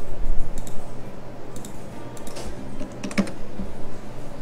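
Computer keyboard and mouse clicks: a few separate clicks, then a quick cluster of keystrokes about three seconds in, with a low bump at the start.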